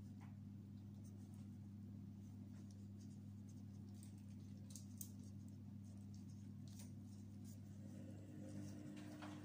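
Faint rustling and soft clicks of a thin spring roll wrapper being folded and rolled by gloved hands, over a steady low hum.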